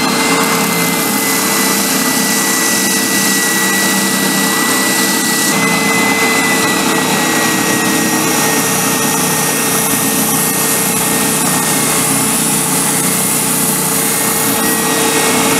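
Benchtop spindle sander running steadily, an oak hammer-handle blank held against its sanding drum to square up its sides. It gives a constant whine over a loud hiss.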